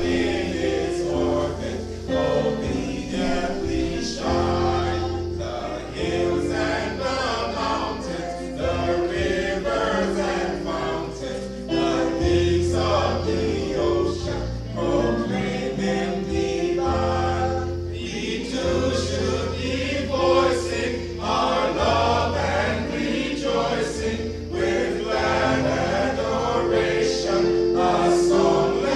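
Choir singing a gospel hymn over sustained low bass notes that change every second or two.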